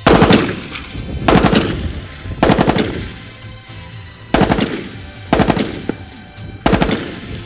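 M14 rifle in 7.62 NATO firing full-auto: six short bursts of a few rounds each, roughly a second apart, each trailing off in echo.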